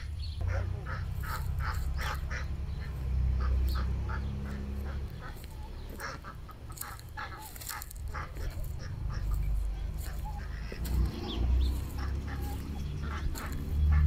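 A flock of domestic ducks quacking, many short calls repeating throughout, over a low rumbling noise.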